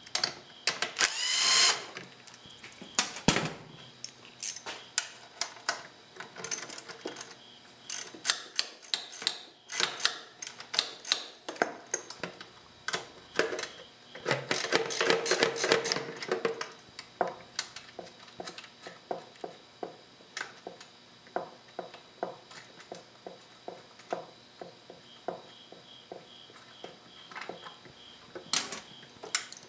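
Cordless drill/driver whirring briefly as it backs out an 8 mm bolt holding the plastic coolant reservoir of a Kawasaki KLR 650. Many small clicks and taps follow as bolts, the tool and the plastic reservoir are handled.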